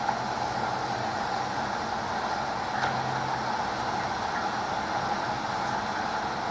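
Steady background noise with a low hum and no speech, with one faint click about three seconds in.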